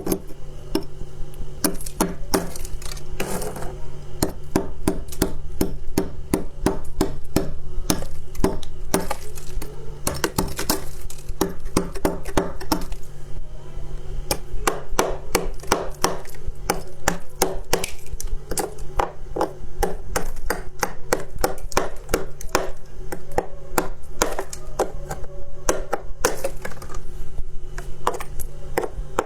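Close-miked crunching of soft white ice, freezer frost, being bitten and chewed: a dense run of sharp crunches, several a second, over a steady low hum.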